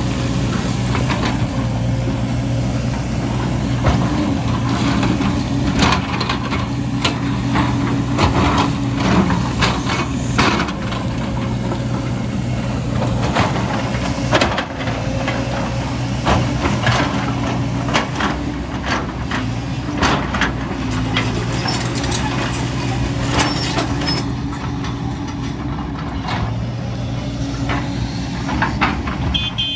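Heavy diesel construction machinery, an excavator at work, running steadily, with irregular knocks and clatters of rock and metal throughout.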